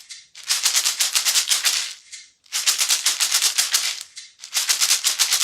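Homemade shaker made from plastic water-bottle bottoms taped together, shaken in three bursts of about a second and a half each, a fast, fine rattle with short pauses between.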